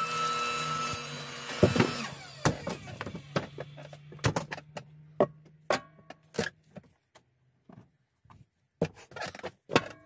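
Firewood knocking and clattering as pieces are handled and thrown, a string of sharp wooden knocks at uneven intervals. A steady mechanical hum fades out over the first half.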